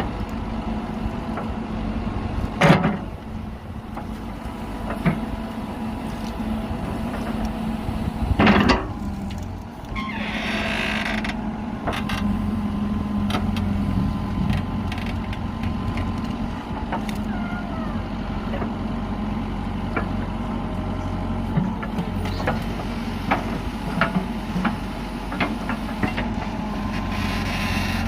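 Backhoe loader's diesel engine running steadily, with two loud clanks about three and eight and a half seconds in, a short hiss a little after ten seconds, and scattered light knocks of the working machine.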